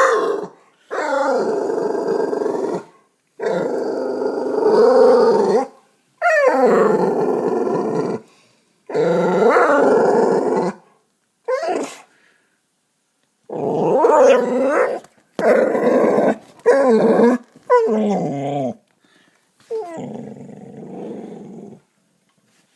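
Dog growling at a cat in a string of about ten growls, most lasting one to two seconds, each rising and falling in pitch, with short pauses between them; the last growl is quieter.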